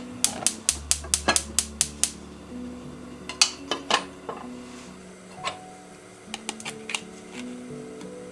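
Gas hob burner igniter clicking rapidly, about four clicks a second, for the first two seconds as the burner is lit. Then a metal frying pan knocks a couple of times on the burner grate, followed by a few lighter clicks and taps. Soft background music plays throughout.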